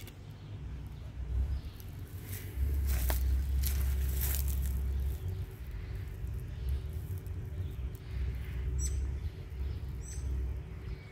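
Outdoor ambience: wind buffeting the phone's microphone in low rumbles, loudest for a few seconds early on. A small bird chirps twice near the end.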